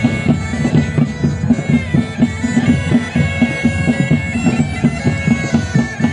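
Bagpipes playing a melody over a steady drone, with a drum beating a regular march rhythm underneath.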